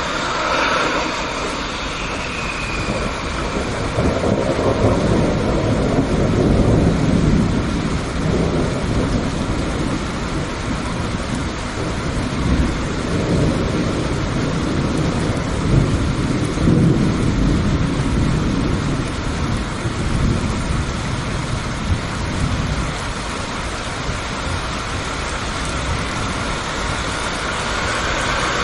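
Thunderstorm: steady rain with long low rolls of thunder, swelling a few seconds in and again through the middle.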